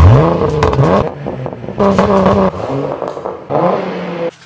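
Ford Mustang engine revving in repeated blips, each a quick rise in pitch, with steadier stretches between. It cuts off suddenly near the end.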